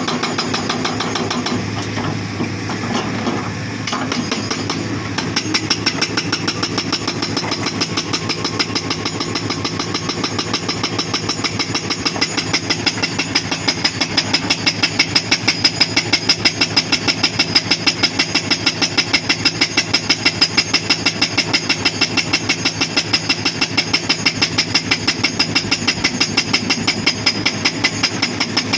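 Hydraulic breaker on a Hitachi Zaxis 240 excavator hammering rock in rapid, even blows over the running diesel engine. The hammering sets in about five seconds in and gets louder partway through.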